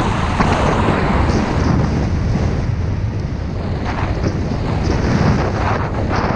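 Wind rushing over a body-worn camera's microphone while snowboarding downhill, mixed with the hiss and scrape of the board sliding through snow, with a few brief scrapes in the second half.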